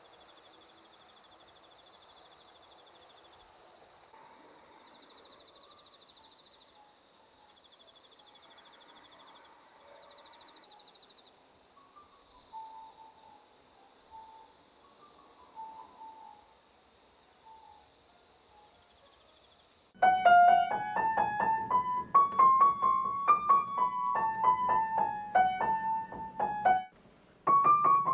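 Faint insects chirping steadily, with a few short chirps, then about two-thirds of the way in an upright piano starts playing a bright melody loudly, breaks off briefly near the end and starts again.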